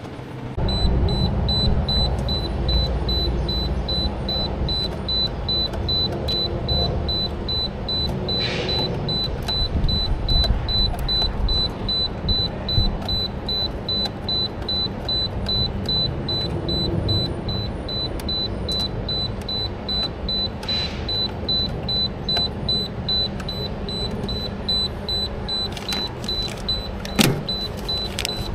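Steady low mechanical rumble of running machinery, with a constant high-pitched whine over it. A few short rustles and a sharp click from handling come near the end.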